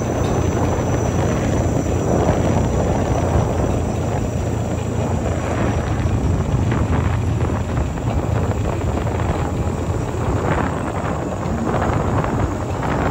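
A vehicle engine running steadily while driving along a road, mixed with wind noise on the microphone.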